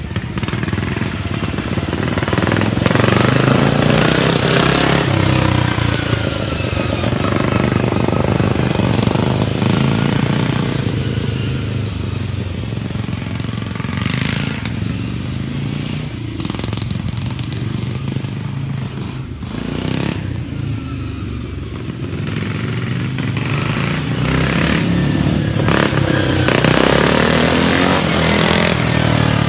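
Racing lawn mowers' modified Briggs & Stratton engines running hard, with the engine pitch repeatedly rising and falling as they rev and pass.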